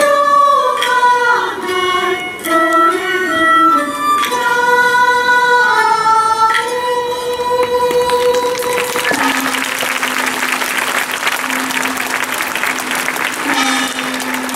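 A Minshingaku ensemble of moon lutes and flutes plays a sustained, sliding Chinese-style melody, which ends about nine seconds in. Applause follows, with a low held tone underneath.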